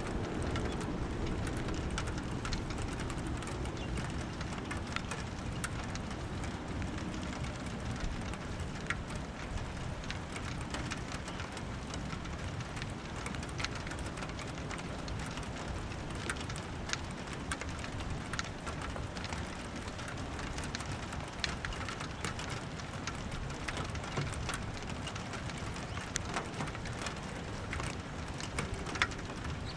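Steady rain falling during a thunderstorm, with many individual drops ticking on a hard surface. A low rumble fades out over the first few seconds.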